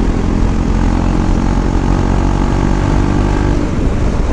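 Motorcycle engine running at a steady cruising speed under heavy wind rush. A steady engine note sits over the rumble and fades out about three and a half seconds in.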